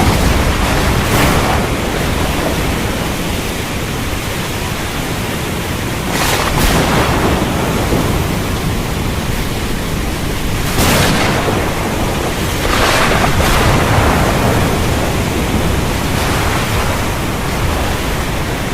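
Thunderstorm: heavy rain with thunder, a steady wash of noise with several louder thunder cracks, the strongest about six and eleven seconds in. It cuts off suddenly at the end.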